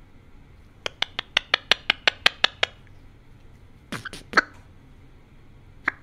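Male eclectus parrot making a quick run of about a dozen sharp clicks, roughly six a second, into a close microphone. About four seconds in it gives a few short squeaky chirps, and one more comes near the end.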